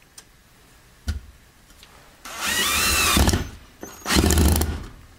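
Channellock 19.2 V cordless drill/driver motor whirring in two short bursts about a second each, pitch rising as it spins up and dropping as it stops, driving a screw into a block of wood. A single knock comes about a second in.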